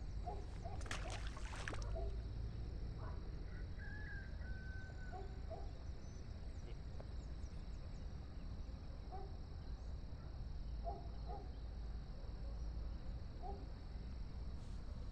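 Outdoor ambience by a pond: steady low wind rumble on the microphone under a constant thin insect drone, with scattered short, faint bird calls. A brief rustling scrape comes about a second in.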